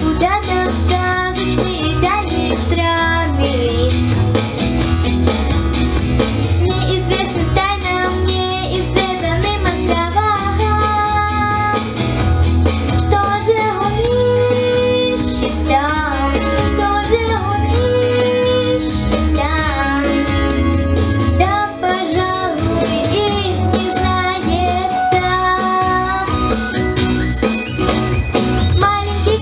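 A girl singing amplified through a handheld microphone over a recorded backing track with a steady bass line, holding and bending long notes.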